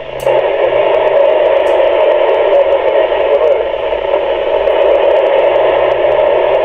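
Amateur radio receiver audio on the ISS FM repeater downlink: a steady, loud rush of radio hiss with no clear voice, only faint garbled signal in the noise.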